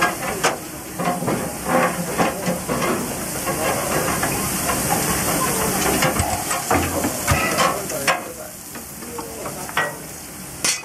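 Steady hissing and scattered metal clanks and knocks from servicing work on a JNR C62 steam locomotive. The hiss drops somewhat in the last few seconds.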